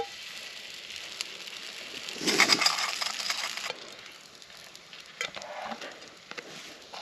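Food cooking over a campfire: a steady crackle and sizzle with scattered pops, and a louder burst of dense crackling about two seconds in that lasts about a second and a half.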